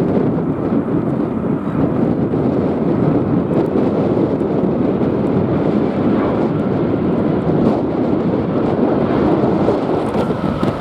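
Rolls-Royce Trent 700 jet engines of an Airbus BelugaXL, a steady low rumble, mixed with wind buffeting the microphone.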